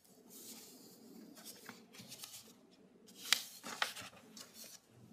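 Sheets of paper rustling as they are handled and shuffled close to a desk microphone, with two sharper rustles a little past three seconds in.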